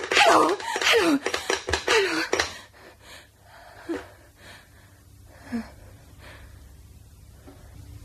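A human voice gasping and crying out in agitation, with pitch swooping up and down, for about the first two and a half seconds. Then a quiet stretch with a low steady hum and a couple of faint short sounds.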